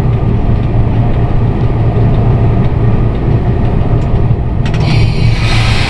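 Cab of a VL11M electric locomotive running along the line: a steady, loud low hum with rumble. About four and a half seconds in, a few sharp clicks come, then a high hiss that keeps going.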